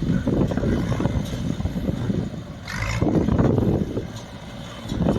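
Small square baler running behind its tractor: a steady, loud mechanical rumble with uneven pulses and a short hissing burst about two and a half seconds in.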